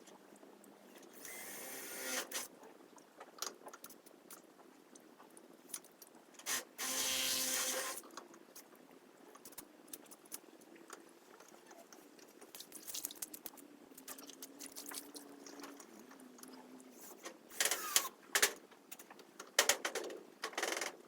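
Cordless drill driving screws into a roofing sheet: a short run of the drill about a second in and a longer, steady run around the middle, between clattering and knocks of the sheet and screws being handled.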